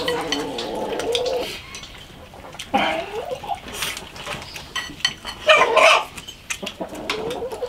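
Chickens calling: a long drawn-out call, like a rooster's crow, in the first second and a half, then shorter calls every couple of seconds, over scattered small clicks of eating.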